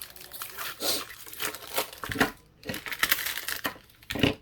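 Plastic packaging crinkling and rustling as it is handled, with a few sharper crackles.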